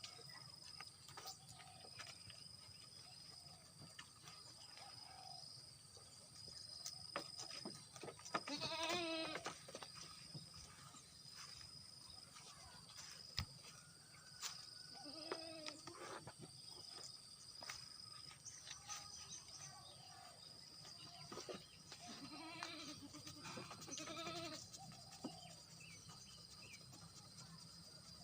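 Goats bleating in quavering calls, a few scattered bleats with the loudest about nine seconds in. A faint high-pitched pulsing tone runs underneath, with a sharp click now and then.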